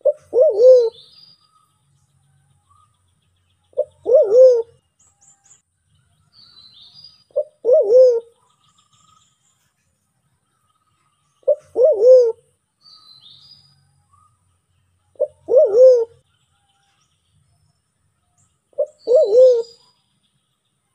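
Sulawesi black pigeon (white-faced cuckoo-dove) calling: a short low note followed by a longer coo that swells twice, repeated six times about every three and a half seconds. Faint high chirps of small birds sound between the coos.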